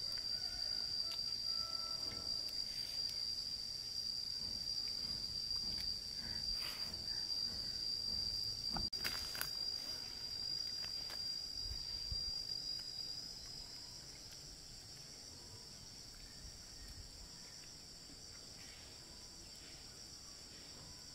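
Insects chirring in a steady high-pitched chorus, growing quieter about two-thirds of the way through, with a brief click or two near the middle.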